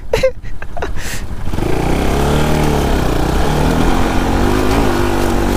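Motorcycle engine accelerating on an off-road ride. About a second and a half in, its pitch rises and then eases back, and it runs on fairly steadily.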